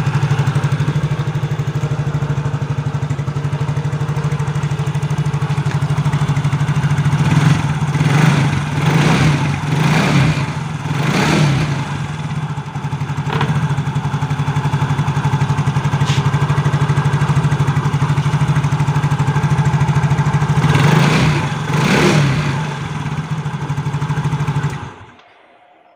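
Yamaha Mio Soul GT scooter's fuel-injected single-cylinder four-stroke engine idling steadily, running normally now that the fuel pump delivers fuel. The throttle is blipped briefly several times, a few about a third of the way in and twice more later. The engine is switched off about a second before the end.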